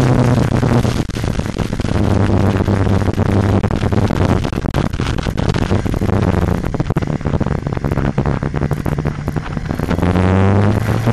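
Motorcycle engine heard from the riding bike over heavy wind rush on the microphone. The engine note drops about a second in, runs lower and more unevenly through the middle, and climbs again near the end as the bike accelerates.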